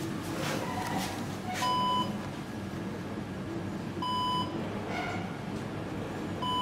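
Electronic beep from a KONE EcoDisc lift at the landing with its doors open, sounding three times, each beep short and about two and a half seconds apart.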